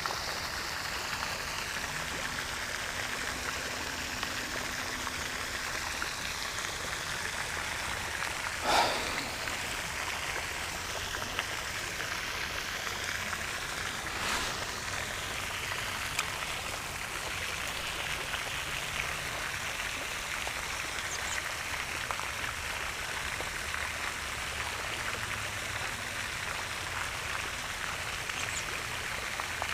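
Steady hiss of running or trickling water. A brief, louder splash-like noise stands out about nine seconds in.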